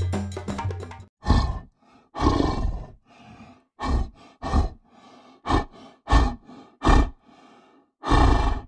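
Tiger growling and roaring in a string of about eight short growls, roughly one a second, with music fading out in the first second.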